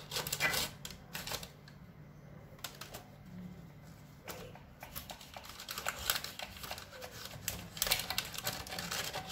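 Table knife slicing a soft sponge cake in a paper-lined glass baking dish: scraping strokes with small clicks as the blade meets the dish and rustles the baking paper, busier near the end.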